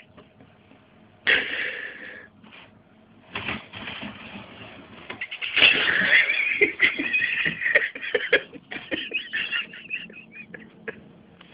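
Cardboard box scraping and knocking against the floor as a cat inside shoves it about. There are several scraping bursts, the longest about halfway through, then a run of quick light knocks near the end.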